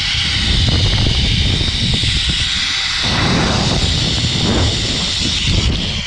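Wind buffeting the microphone during a fast zipline ride, over the steady high whir of the trolley's pulleys running along the steel cable.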